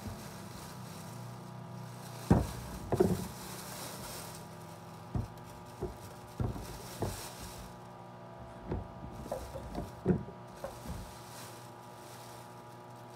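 Handling of oranges and a plastic bag: a plastic bag crinkling, with irregular knocks and thuds as the fruit is moved and set down, about eight in all. A steady low hum runs underneath.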